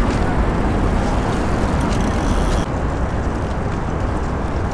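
Steady outdoor ambient noise with a low rumble like distant road traffic. The sound changes abruptly about two and a half seconds in, its hiss dropping away.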